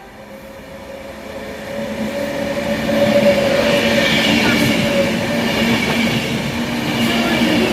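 A passenger train comes in, growing louder over about the first three seconds and then running past steadily loud. Its wheels and running gear make a rushing noise with a steady hum and whine over it.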